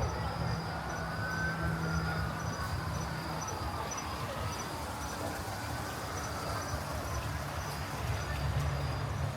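Crickets chirping in a steady, even pulse about twice a second over a low city rumble, with a distant siren rising and falling in the first few seconds.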